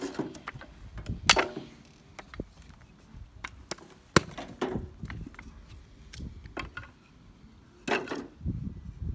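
Small hatchet splitting pine kindling: a series of sharp, irregularly spaced chops and cracks of the blade into wood, the strongest about four seconds in, mixed with sticks knocking together as they are laid in a steel fire trough.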